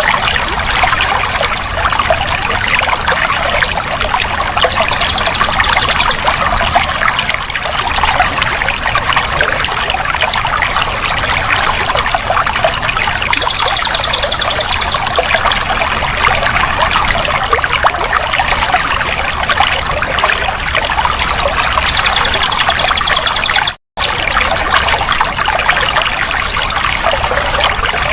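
Water running and trickling steadily, with three short high trills, about eight seconds apart, over the water. The sound drops out completely for a moment near the end.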